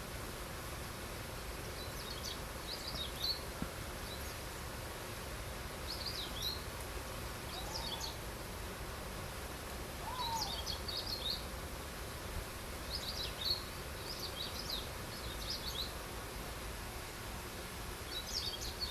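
Small birds chirping in short, high clusters every few seconds over a steady outdoor hiss, with two lower rising-and-falling notes about eight and ten seconds in.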